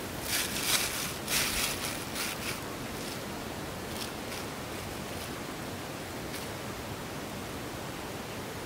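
A thin plastic bag crinkling as it is handled and opened, in a run of crackles over the first couple of seconds and then a few single crinkles, over a steady hiss.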